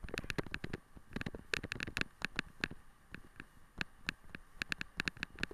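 A wheeled dog-sled rig rattling and clattering as it runs over a rough dirt track, heard close up: rapid, irregular clicks and knocks, several a second.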